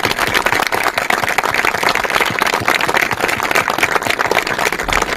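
Audience applauding: many hands clapping at once in a sustained, dense patter.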